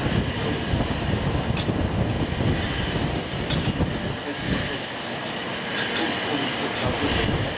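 Wind buffeting the microphone, a low rumble that rises and falls in gusts, with a few faint sharp ticks.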